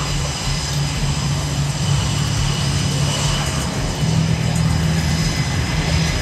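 Aircraft engine running steadily, with a low hum and a thin high whine.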